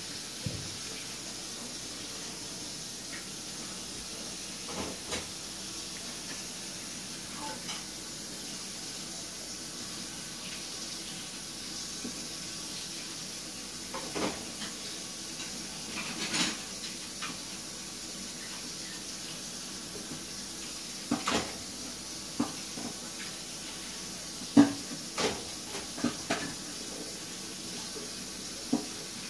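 Steady hiss with scattered short knocks and scuffs from Shiba Inu puppies wrestling against a wooden pallet fence on a concrete patio, most of them in the second half.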